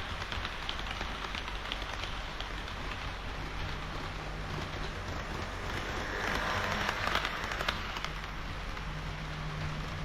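HO-scale model train of KiHa 40 and KiHa 58 railcars running on the layout's track: a steady, fine rattle of the small wheels over the rails, with a low motor hum that comes and goes. The rattle grows louder for about a second and a half just past the middle.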